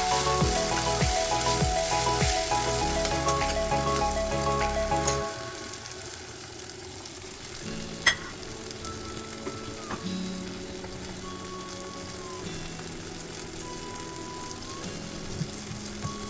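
Food frying and sizzling in a pan, with a sharp click about eight seconds in. Background music with a steady beat plays over it and drops out about five seconds in.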